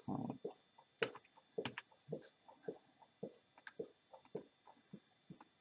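Faint, irregular clicks of a computer mouse and keyboard, a few a second with short gaps between them.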